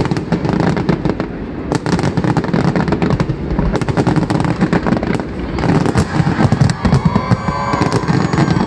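Fireworks finale: a dense, continuous barrage of bangs and crackling, many bursts a second, loud throughout.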